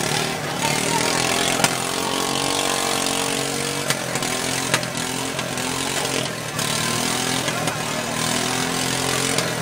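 Engines of stock riding lawn mowers running under throttle as they race, their pitch rising and falling.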